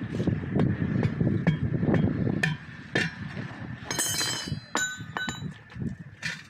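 Metal tools knocking and clinking during tyre and tube repair work, about nine irregular strikes. A cluster of ringing metallic clinks comes about four seconds in, followed by two short ringing taps.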